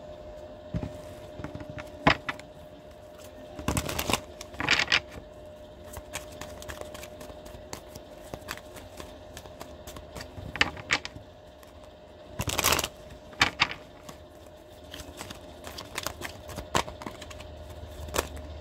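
Tarot cards being handled on a table: scattered clicks and taps as cards are drawn and laid down, with two short shuffling swishes, about four seconds in and again near twelve and a half seconds. A faint steady hum runs underneath.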